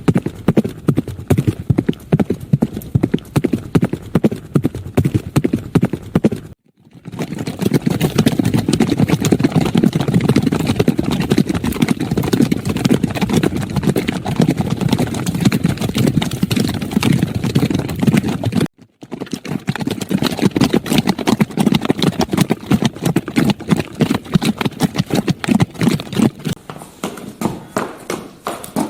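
Horse hooves clip-clopping in a rapid, continuous stream of hoofbeats, cutting out abruptly for a moment twice, about a quarter of the way in and again about two-thirds through.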